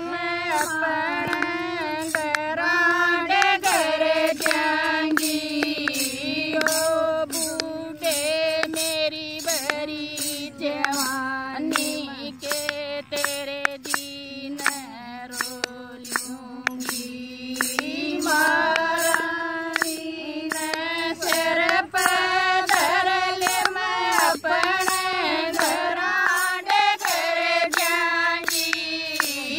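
Women singing a Haryanvi jakdi folk song unaccompanied, a melodic line with long held notes, kept in time by steady hand claps.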